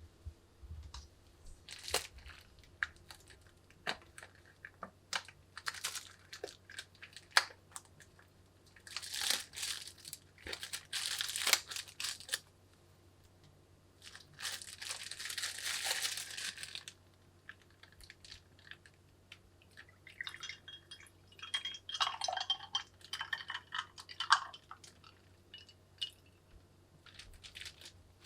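Plastic wrapping being crinkled and torn open, in two longer rustling stretches, amid scattered clicks and taps of handling.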